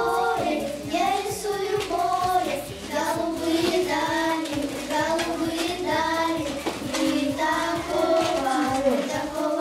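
Children singing a song together, a continuous melody with held notes.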